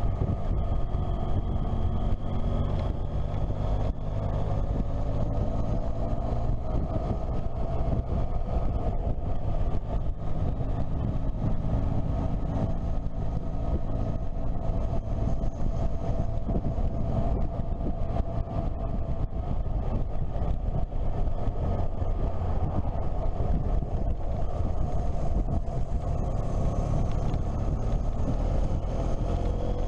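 Motorcycle engine running steadily at road speed, its note rising and falling slightly with the throttle, over a continuous low wind rumble on the microphone.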